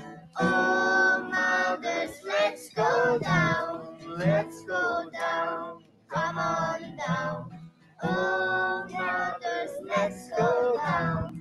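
A young girl singing a song in phrases, with short pauses between them, accompanied by an acoustic guitar.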